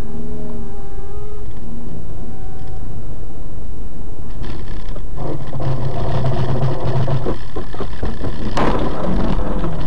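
Vehicle engine and road noise as picked up by a dashcam, growing louder and denser about four seconds in, with a sharp bang near the end.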